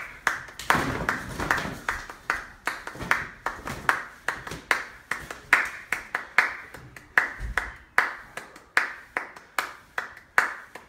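Hand claps keeping a steady beat, about two a second, for the dancers to follow.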